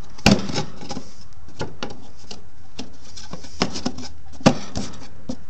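Irregular knocks and clicks from the removable quarter-inch plywood panel on the food cart being handled. There are two louder knocks, about a third of a second in and near the end, with lighter taps between them.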